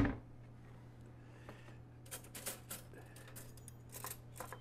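Kitchen handling noises: a sharp knock at the start, then a run of quick light clicks and rattles over a low steady hum.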